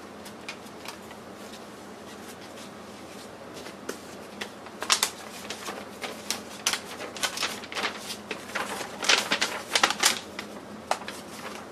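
Pages of an old, worn paper assembly manual being turned and a large folded sheet unfolded: dry paper rustling with quick crackles and flaps. The handling is light at first and gets busy from about four seconds in.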